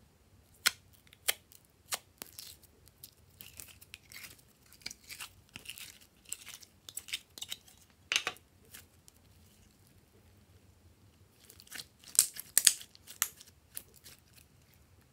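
Red glitter slime being worked out of a clear plastic tube and squeezed between fingers: sticky clicks and crackling pops in scattered clusters, loudest near the end.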